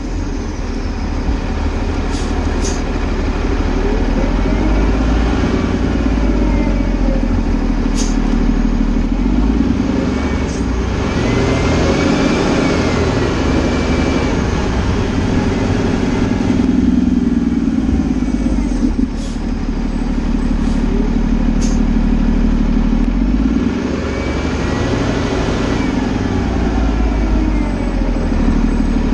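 Fire engine's engine running as the truck drives slowly, its pitch rising and falling with the throttle. A few short sharp clicks sound over it.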